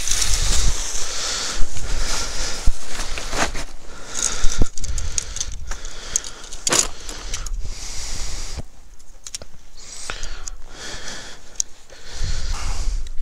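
Quechua MH100 tent being pitched: the nylon fabric rustles as it is handled, broken by many sharp clicks and metallic clinks from the poles and pegs.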